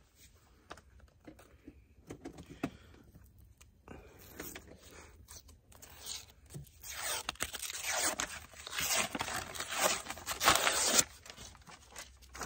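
Paper wrapper being peeled and torn off a refrigerated dough tube: soft rustling at first, then a few seconds of louder tearing and crinkling over the second half that stop about a second before the end.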